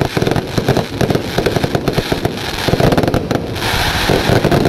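Aerial fireworks display: shells bursting overhead in a loud, rapid, unbroken run of bangs and pops.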